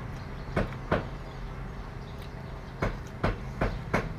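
Crisp snaps of fresh vegetable stems being broken by hand over a bowl of noodle soup: two about a second in, then four in quick succession near the end, over a steady low hum.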